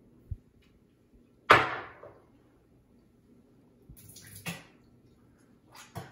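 Mouthfuls of rinse water spat into a bathroom sink after brushing teeth: one loud spit and splash about a second and a half in, then smaller spits around four and a half seconds and near the end. A soft knock comes just before the first spit.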